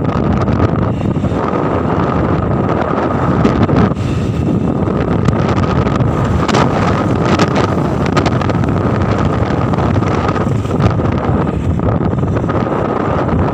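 Wind buffeting the microphone of a phone carried on a moving motorcycle, a loud steady rush over the running engine and road noise, with a faint steady whine underneath.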